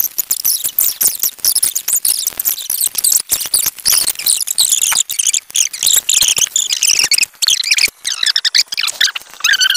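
Fast-forwarded audio: high-pitched, chipmunk-like chattering voices over rapid clicking from hands handling slime. The pitch drops lower near the end.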